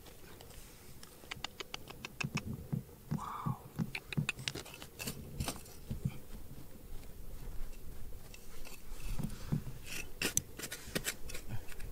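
Irregular scratching and scraping with sharp clicks, sparse at first and coming thick and fast from about two seconds in.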